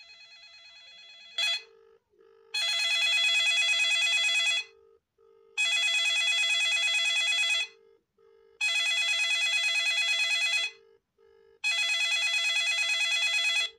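Samsung SGH-Z400 mobile phone playing a ringtone: a bell-like ring sounding four times, each about two seconds long with a second's pause between, and short low double beeps in the gaps.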